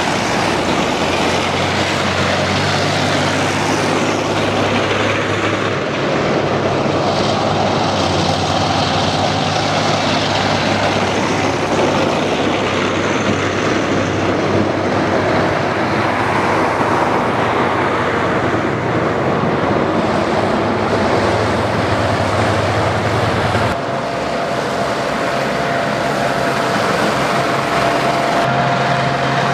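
Armoured vehicles and army trucks of a military column driving past on a wet road: a steady drone of heavy diesel engines mixed with road noise, shifting in character about six seconds in and again near 24 seconds as different vehicles go by.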